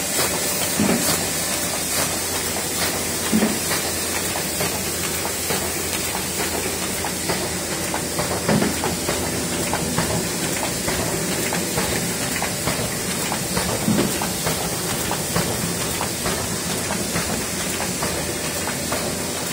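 Miehle Roland Parva single-colour sheet-fed offset press running, feeding heavy card stock. It makes a steady mechanical clatter of many fast clicks over a steady high hiss, with a few louder knocks several seconds apart.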